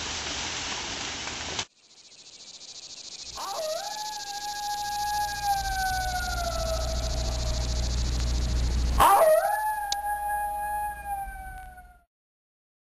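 Two long canine howls, each rising sharply at the start and then holding and slowly sinking in pitch, over a low rumble. Before them, a steady rushing noise cuts off abruptly about a second and a half in.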